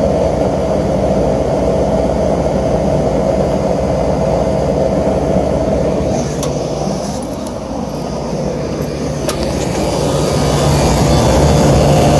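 Air-conditioning unit running just after being switched on: a steady hum of compressor and fans, sounding healthy. A steady tone in the hum stops about halfway through, a couple of sharp clicks follow, and the low hum grows louder near the end.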